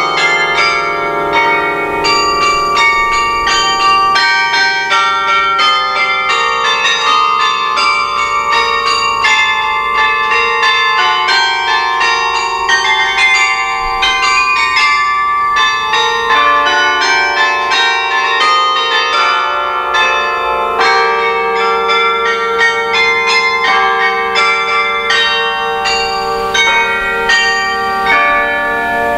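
Carillon bells playing a French carol arrangement: a quick tune of many struck bell notes over longer-ringing lower bells, each note ringing on.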